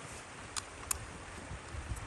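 Small twig campfire burning with a steady hiss and two sharp crackling pops about a third of a second apart, with low wind buffeting on the microphone near the end.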